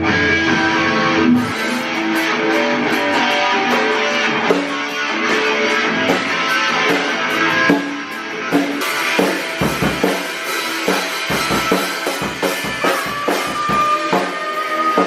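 Music with guitar and a drum kit, with a long held high note near the end.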